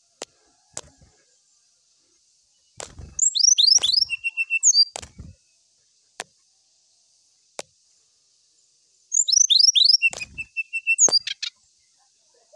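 Brown-chested jungle flycatcher singing two phrases, about three seconds and nine seconds in. Each phrase is a quick run of high, downward-slurred whistles, then a short even trill. Scattered soft clicks and low knocks come between and around the phrases.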